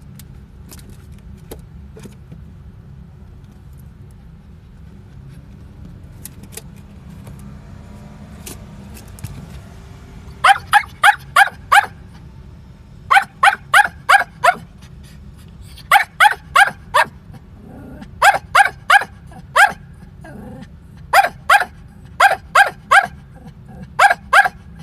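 A Pomeranian barking in quick volleys of sharp, high yaps, three to seven at a time, starting about ten seconds in and repeating every couple of seconds, over a steady low rumble.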